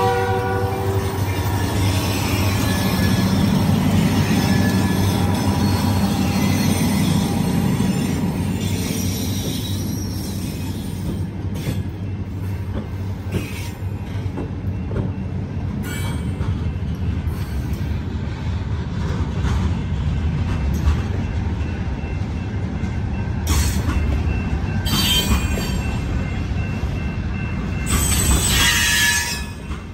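Freight train passing close by. The horn trails off about a second in, then the diesel locomotives run past with a heavy rumble, followed by boxcars rolling over the crossing with wheel clatter and short screeches of wheel squeal, the loudest near the end.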